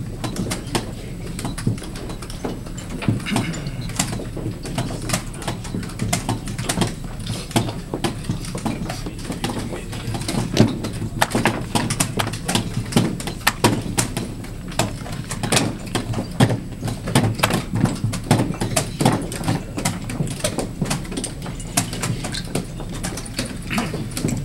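Rapid, irregular clicks and knocks of plastic chess pieces set down on a vinyl board and the buttons of a digital chess clock being pressed, at the quick pace of a blitz game, over steady background room noise.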